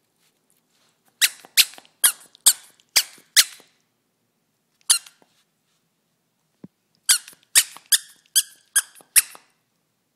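Squeaker inside a plush stuffed carrot toy squeaking as a dog bites down on it. There is a quick run of six sharp squeaks, about two a second, then a single squeak, then another run of six.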